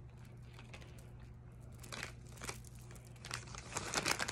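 Clear plastic jewelry bag crinkling as it is handled: a few crackles around two seconds in, then more continuous crinkling near the end.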